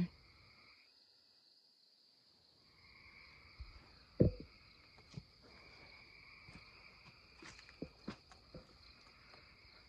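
Footsteps on a leaf-littered forest trail: a heavy step about four seconds in, the loudest sound, then lighter crunching steps. A steady high chorus of night insects runs underneath.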